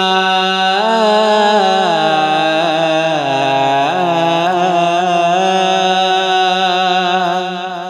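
A male voice singing a long wordless melodic phrase in a devotional manqabat. The held note sinks to its lowest in the middle and climbs back, then fades out near the end.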